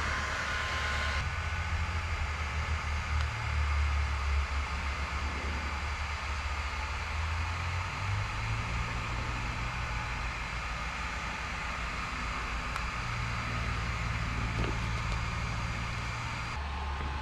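Heat gun blowing hot air, its fan motor whining steadily, until a sudden change about a second in; after that a steady low hum and hiss run on.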